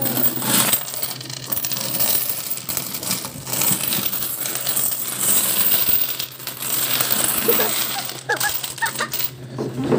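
Coins pouring out of an upturned metal can piggy bank, clinking and jingling continuously as they tumble onto a growing pile.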